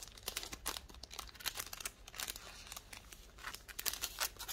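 Packaging being handled and crinkled, a dense irregular run of small crackles and rustles.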